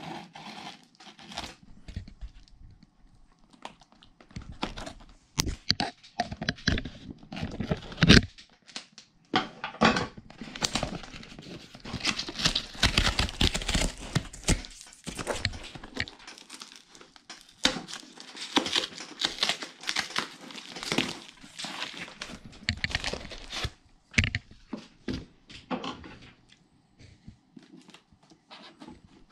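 Cardboard parcel being opened by hand with scissors: packing tape cut and torn, card flaps crinkling and rubbing, amid irregular knocks and scrapes. Longer stretches of tearing and crinkling come about a third of the way in and again a little past the middle.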